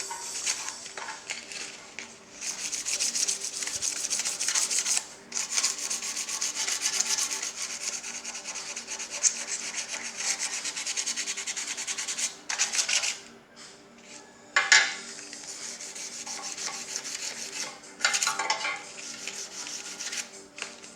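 Sandpaper rubbed rapidly back and forth over a car's windscreen wiper arm, taking off its peeling paint. The sound comes in long stretches with brief pauses, and stops for about two seconds roughly two-thirds of the way in.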